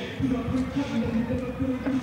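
Music with a bass beat, mixed with indistinct talk.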